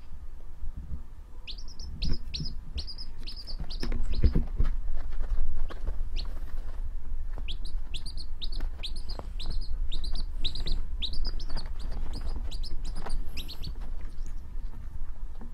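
Baby chick peeping: quick runs of short, high, falling chirps, about three a second, one run starting about a second and a half in and another from around the middle.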